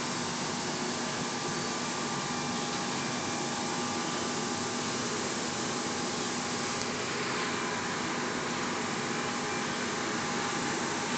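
Automatic ceramic plate glazing machine running: steady mechanical noise from its motors and conveyor, with a few steady hum tones held through it.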